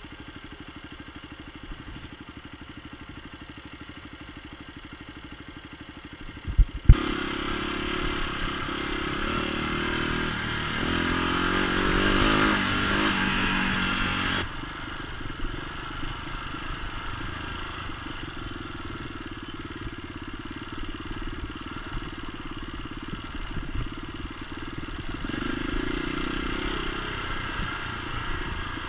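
Dirt bike engine idling with a fast, even pulse, then two sharp knocks about seven seconds in. After that the engine runs louder under load as the bike rides along a dirt trail, swelling for a few seconds before settling into a steadier run.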